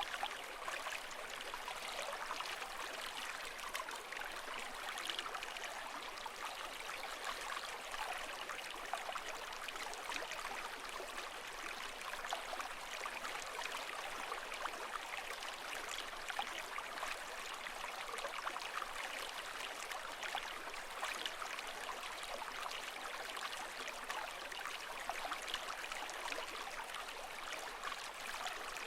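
Steady running water, a continuous babbling and trickling full of small splashes, with no rise and fall of breaking waves.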